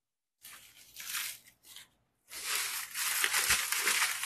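Dry banana leaves crinkling and crumpling as they are handled and stuffed in as bee smoker fuel: two short rustles, then a longer crackling rustle through the second half.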